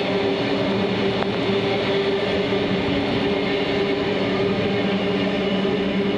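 Queensland Rail suburban electric multiple unit passing, a steady hum over running noise from the wheels on the track.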